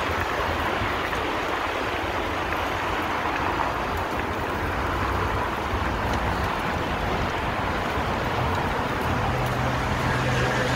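Steady city street noise, mainly road traffic, with no single event standing out. A low steady hum comes in near the end.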